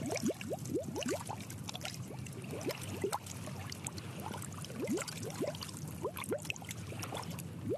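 Underwater ambience: bubbles gurgling as many short rising blips, with a scatter of small sharp clicks over a low steady hum.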